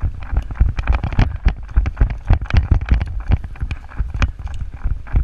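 A player running on foot: heavy footfalls about three or four a second, with gear rattling and sharp clicks among them and wind on the microphone.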